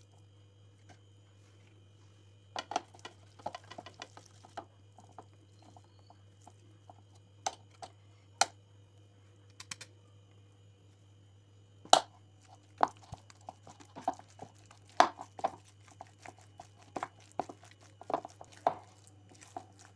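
Boiled potatoes being mashed and stirred in a steel bowl: irregular soft squishes with sharp clicks and knocks against the metal, a few of them louder. A steady low hum runs underneath.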